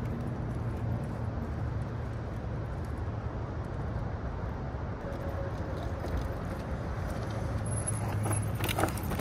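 Steady rolling noise of a DYU C1 e-bike being ridden over rough dirt ground, with a low rumble underneath and a few sharp clicks and rattles near the end.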